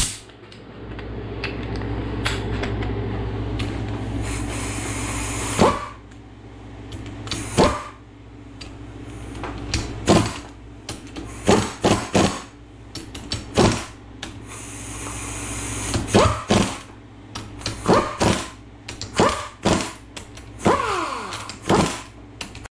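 Sharp metal knocks and clanks from tools at work on a truck's rear differential during a gear and posi install, coming one to three a second from about six seconds in, some with a short ring after them, over a steady low hum. Before the knocking starts there is a few seconds of steadier, louder noise.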